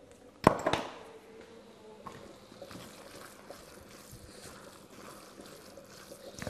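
Kitchen work sounds: a sharp knock about half a second in, with a brief ringing tone after it, then faint small clinks and handling noises as food is prepared at a counter.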